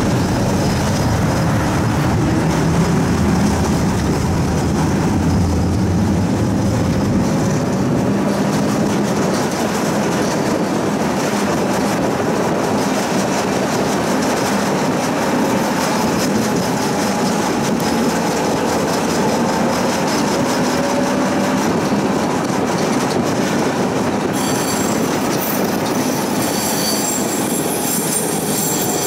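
Budapest city tram in motion, heard from on board: steady running noise of the wheels on the rails and the car, with faint gliding tones. Near the end a high-pitched wheel squeal sets in.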